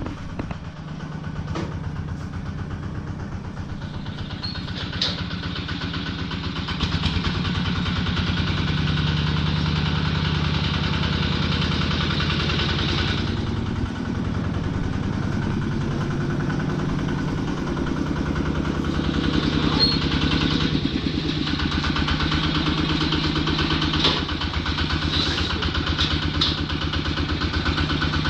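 Small tractor's engine running steadily, louder from about seven seconds in, with a few short clicks over it.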